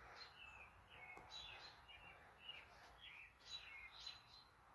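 Faint chirping of small birds: a string of short chirps, many falling in pitch, about two or three a second, over a low background hum.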